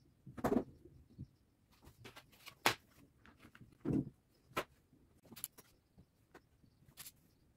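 Plastic popsicle mould and wooden sticks being handled on a tabletop: an irregular scatter of light clicks and knocks as the sticks go into the mould's slots and the lid is fitted, with a few sharper taps among them.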